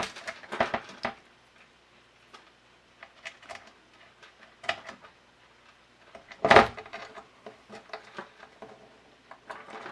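Small metal hanging clips clicking and scraping against the metal back panel of an LED grow light as they are worked into its corner holes: scattered light taps, with one sharper click about six and a half seconds in.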